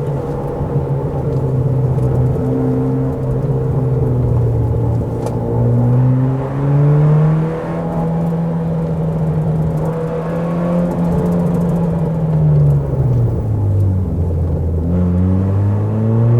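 Car engine running hard on a winding road, its pitch climbing about six seconds in and holding, then dropping steeply near thirteen seconds before climbing again as the car accelerates out.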